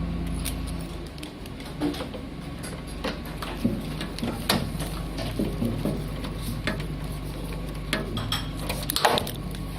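Irregular light clicks and metallic clinks of hand tools, screws and a metal switch panel being handled and fastened into place. A steady low hum fades out about a second in.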